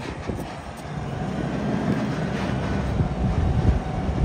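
Front-loading garbage truck's diesel engine revving louder about a second in as its hydraulic front forks raise the container over the cab, with a few metal knocks.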